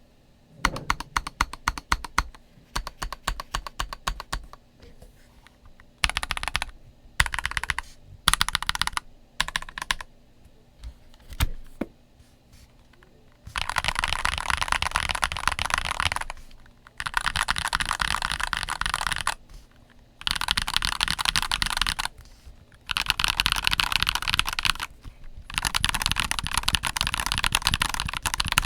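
Stock NuPhy Halo96 mechanical keyboard being typed on: separate keystrokes one after another at first, then short bursts, and from about halfway through fast continuous typing in runs of two or three seconds with brief pauses between.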